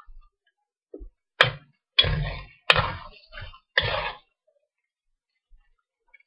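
A metal spoon knocking and scraping against a metal wok as cubed chicken is stirred: four sharp strikes in the first four seconds, each followed by a short scrape. After that it goes quiet.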